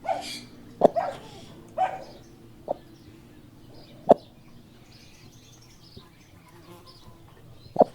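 Free-range hens clucking: a handful of short, sharp clucks about a second apart, a gap, then another near the end, with faint high chirping in between.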